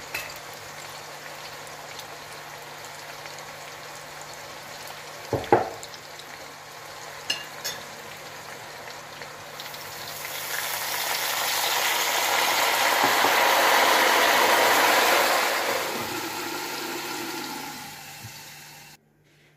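Cutlets and potato slices sizzling in hot oil in a pot, with a sharp clink about five seconds in and a couple of lighter clicks soon after. The sizzle swells louder from about ten seconds in, then fades away near the end.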